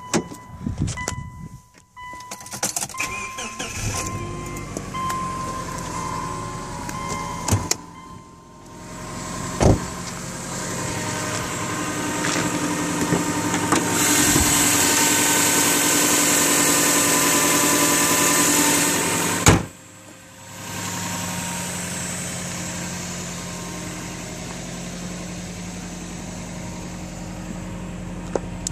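2005 Subaru Legacy GT's turbocharged flat-four engine starting and running at idle through its stock exhaust. A strong hiss sits over the engine for several seconds in the middle, and the idle settles into a steady low hum over the last third.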